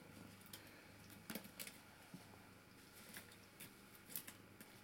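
Near silence with faint, scattered soft taps and scuffles of kittens playing on a felt rug, over a low steady hum.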